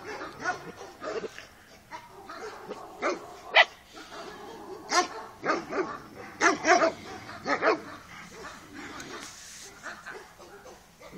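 Carpathian Shepherd Dog puppies barking and yipping in a run of short, high-pitched barks, most of them in the middle stretch.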